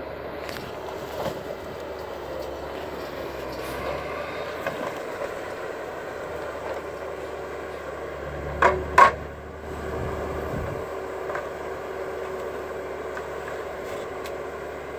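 Timberpro 840B forwarder running steadily with a constant mechanical drone. A little past halfway come two sharp knocks in quick succession.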